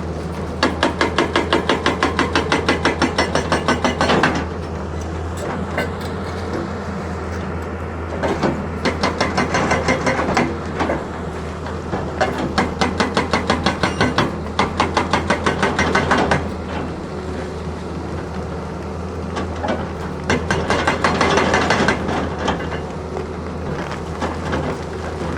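Excavator engine running steadily under four bouts of rapid rhythmic hammering, about four blows a second, each bout lasting a few seconds.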